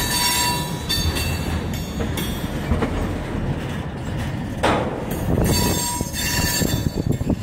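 Freight train tank cars rolling past, their steel wheels rumbling on the rails, with thin high squeals from the wheels coming and going.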